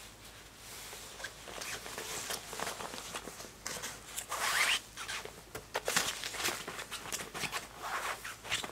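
Irregular rustling and scuffling as a Pembroke Welsh Corgi puppy plays with its toys on the floor, with a louder scrape about four and a half seconds in.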